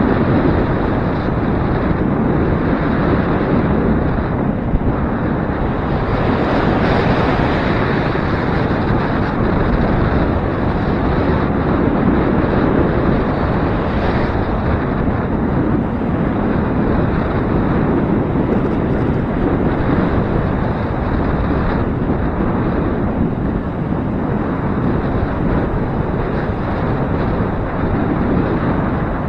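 Gusty wind buffeting the microphone: a loud, continuous rush of noise that swells and eases with the gusts.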